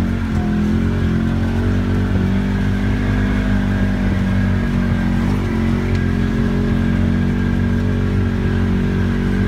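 ATV engine running at a steady, even pitch.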